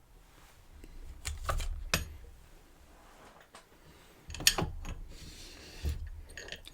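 Small metal clicks and clinks of a disassembled EVVA EPS lock cylinder and its parts being handled, with a low rumble of handling: a few sharp clicks about a second and a half in and a louder one about four and a half seconds in.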